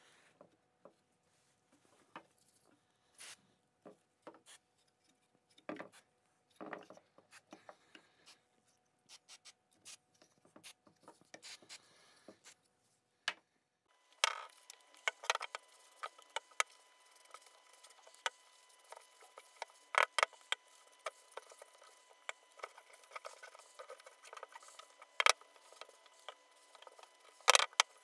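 Small wooden shelf boxes handled and fitted together by hand: scattered light wooden taps and knocks. About halfway through a faint steady hum comes in under sharper, louder clicks and knocks.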